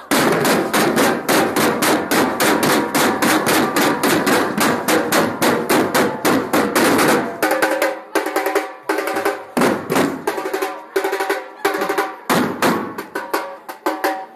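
Batucada drum ensemble of surdos and other drums playing together: a dense, rapid stream of strokes that thins about seven seconds in to spaced, accented hits with ringing drum tones.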